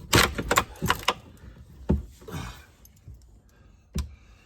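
Knocks and rattling clatter from work on a cabinet being pried loose: several sharp knocks in the first two seconds, then one more about four seconds in.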